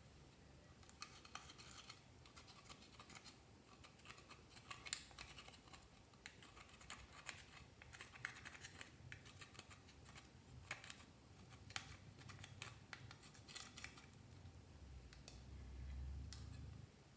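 Clear slime being kneaded and stretched by hand: faint, scattered sticky clicks and crackles, with a low rumble swelling near the end.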